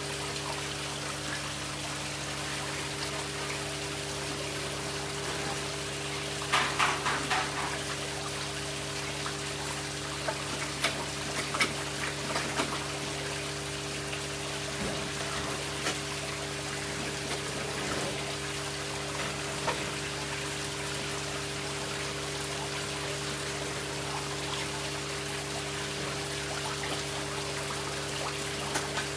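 Koi pond water trickling and pouring steadily over a steady low hum. About seven seconds in there is a brief burst of splashing, then a few sharp splashes over the next several seconds as koi thrash at the surface around a hand in the water.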